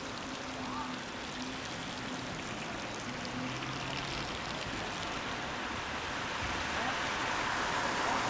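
Rain falling on a wet street, a steady hiss, with the hiss of car tyres on the wet road building up near the end.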